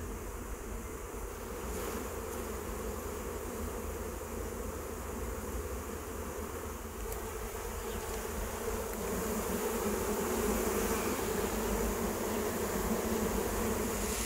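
Large mass of honeybees buzzing as they crawl up a wooden ramp into a hive entrance after being shaken out. The hum is steady and grows a little louder in the second half.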